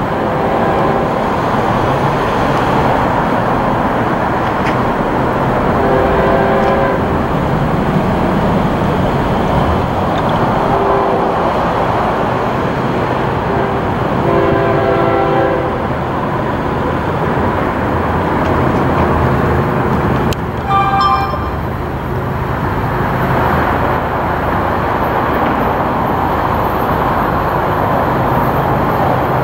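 Approaching diesel freight locomotive running steadily while its horn sounds four blasts in the grade-crossing pattern, long, long, short, long, the last one the longest. A brief higher-pitched tone follows about two-thirds of the way through.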